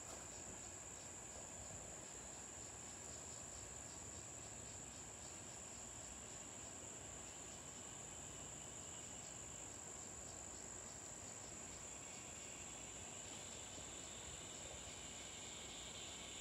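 Insects trilling in a steady, high, unbroken tone, with a second, softer pulsing chirp beneath it. A lower buzzing joins about twelve seconds in.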